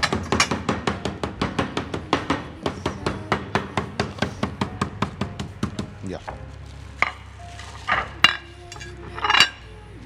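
Metal meat mallet pounding chicken breasts through plastic wrap on a plastic cutting board, about five quick blows a second, stopping about six seconds in. A few separate knocks follow near the end.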